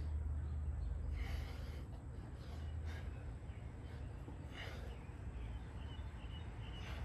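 A man's hard, breathy exhales, a few short puffs spaced a second or more apart, as he works through a high-rep set of push-ups. A low, steady rumble sits underneath throughout.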